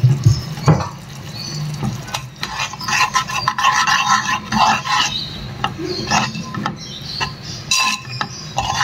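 A utensil stirring tamarind pulp as it simmers in oil in a pan, with irregular scrapes and light clinks against the pan.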